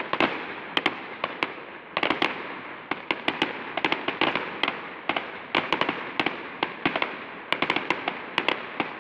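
Aerial fireworks display: a rapid, continuous string of bangs and crackling bursts, several a second, with a brief lull just before a fresh volley about two seconds in.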